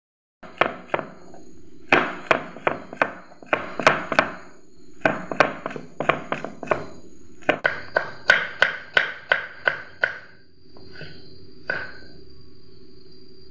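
Kitchen knife chopping peeled garlic cloves on a wooden cutting board: sharp knocks in quick runs of three to six, about three a second, with short pauses between runs, and a few last cuts near the end.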